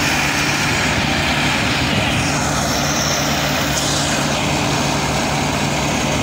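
Preet combine harvester running, its unloading auger pouring grain into a tractor trolley. The engine and machinery give a loud, steady drone with a constant low hum.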